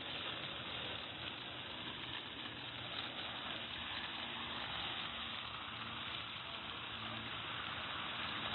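Fountain water jets spraying and splashing steadily onto wet paving, an even rushing hiss.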